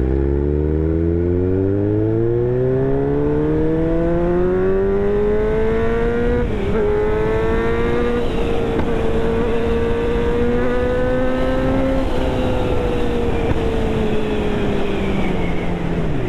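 Kawasaki Z900's inline-four engine with a full SC-Project exhaust, heard from the rider's seat under acceleration. The revs climb steadily, dip briefly about six and a half seconds in, hold nearly steady, then ease off, with a sharp drop right at the end.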